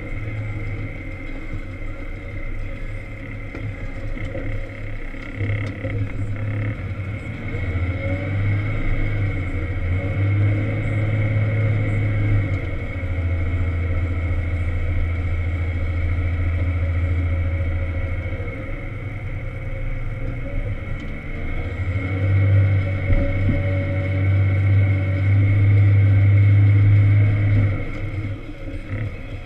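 Volvo L70 wheel loader's diesel engine heard from inside the cab, its speed rising and falling as it pushes a blade of wet snow. It is loudest in the second half and eases off near the end, with a steady high whine underneath.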